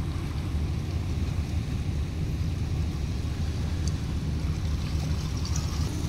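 Steady low rumble of a high-speed catamaran ferry passing on the water.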